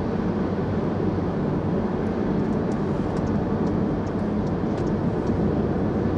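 Steady road noise of a car driving on the interstate: tyre and wind rush over a low engine hum, even throughout.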